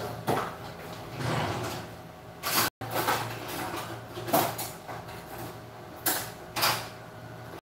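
Kitchen handling noises: a string of about six knocks and clunks, such as cupboard doors and utensils make, spread over several seconds above a low steady hum. The sound cuts out for an instant a little before the middle.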